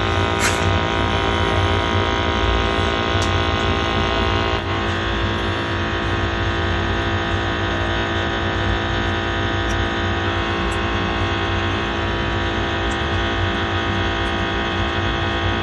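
Gas combi boiler (Glow-worm Easicom3 28c) firing at maximum rate: a steady hum of its fan and burner with many fixed tones, easing slightly about four and a half seconds in. It is being held at full rate while the flue gas readings stabilise during commissioning.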